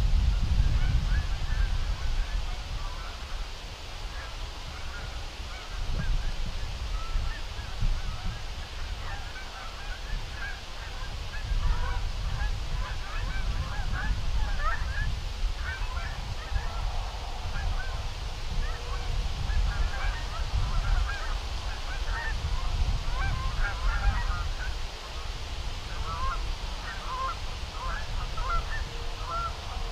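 A flock of geese honking at a distance, many short overlapping calls that grow busier after about twelve seconds. A fluctuating low rumble of wind on the microphone lies under them.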